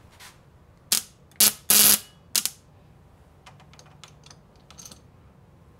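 Ignition buzz coil buzzing in four short bursts, firing sparks across an inline spark tester's gap on a 105-year-old Maytag upright engine: the ignition is making spark. Faint clicks of the test clips follow.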